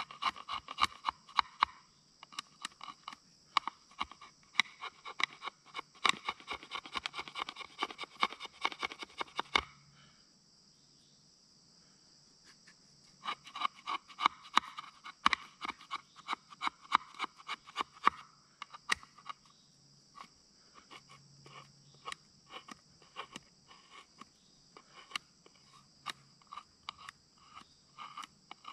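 A knife worked in rapid sharp strokes, several a second, in two long runs with a pause of about three seconds near the middle. A steady high insect drone runs behind it.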